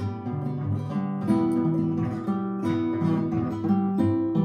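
Instrumental music: a strummed acoustic guitar playing chords, with no singing.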